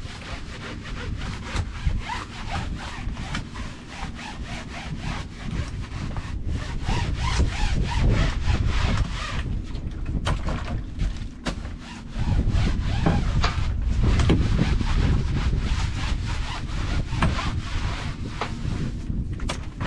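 A brush scrubbing back and forth over a boat's non-skid deck during a wash, in quick repeated strokes.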